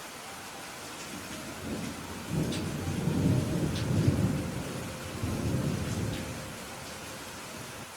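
Steady rain with a roll of thunder: a low rumble builds about a second and a half in, swells and fades away a few seconds later.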